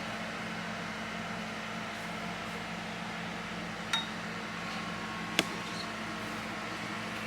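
Steady hum of a running household appliance in a small room, broken by two sharp clicks, about four and five and a half seconds in, the second one louder.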